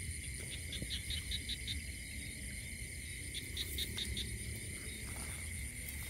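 Night insects trilling steadily in a high, unbroken chorus, with two short runs of quick chirps, about five a second, over a low rumble.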